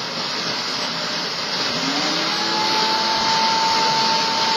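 An electric household appliance motor runs with a loud, steady rushing noise. About two seconds in, its pitch rises into a steady whine and it gets a little louder.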